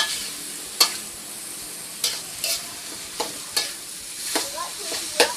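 Stir-fry sizzling in a pan, with a spatula scraping and knocking against the pan about once or twice a second as banana stem and meatballs are stirred and tossed.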